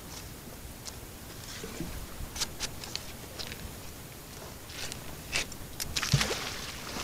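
Magnet-fishing rope being coiled and handled in gloved hands: scattered crunching and scraping sounds. About six seconds in there is a louder rush of rope and a thump as the magnet is thrown out.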